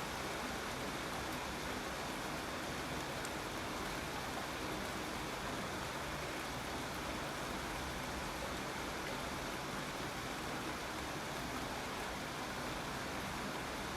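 Steady, even rain falling without let-up.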